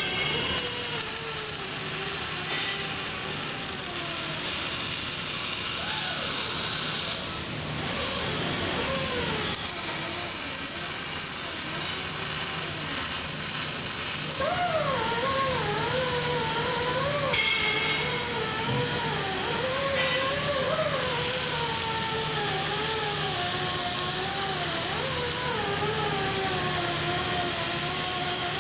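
Metal-fabrication shop noise during arc welding: a steady hum and hiss, with a wavering whine over it that gets louder about halfway through.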